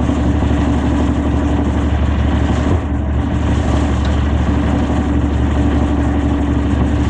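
Victory Magnum motorcycle's V-twin engine idling steadily, run after a fresh oil change to check the oil level and for leaks.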